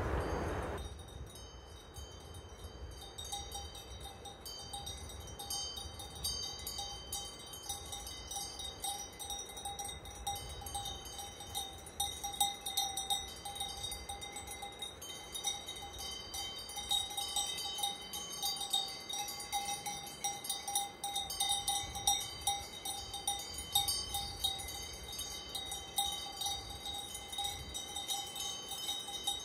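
A loud rushing noise cuts off about a second in. After it, many small metal bells ring and tinkle without pause over a steady ringing tone, like a herd's cowbells.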